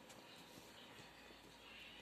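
Near silence: faint steady room noise.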